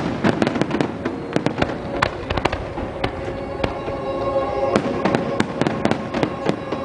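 Fireworks bursting: many sharp, irregular pops and cracks from glittering white crackling shells, over music playing with the display.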